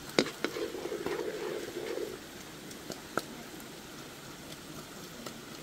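Wooden pestle knocking in a wooden mortar, a few separate sharp knocks, with a low droning hum in the first two seconds and a faint steady hiss behind.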